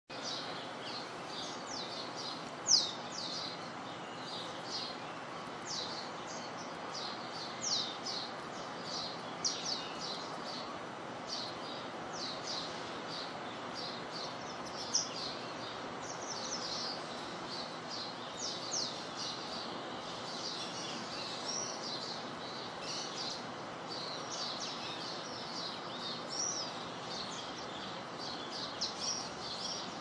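Steady hiss of rain falling on grass and plants, with small birds chirping in quick high notes throughout. A few sharper ticks stand out, the loudest about three seconds in.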